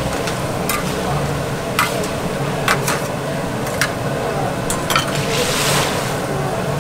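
Sweet potato balls sizzling as they fry in a wok of hot oil, with a metal ladle clinking against the steel wok and basket several times. About five and a half seconds in, a rush of splashing as oil pours down into the steel bowl.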